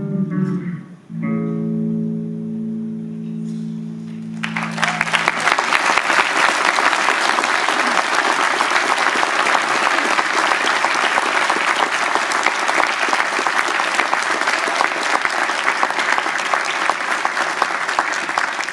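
A guitar plays its last notes and a final chord rings out and fades; about four and a half seconds in, an audience starts applauding and keeps clapping, the loudest sound here.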